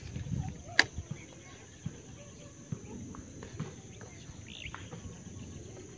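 Steady high insect drone with a short falling bird chirp about five seconds in. A sharp click about a second in and a few light taps come from handling the fishing rod and lure.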